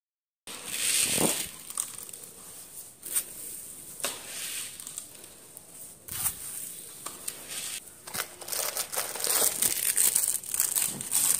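Hands rustling and crinkling plastic while dry grain is scooped from a plastic tub and scattered onto a tiled floor. The crinkling is irregular, with small clicks, and grows louder near the end.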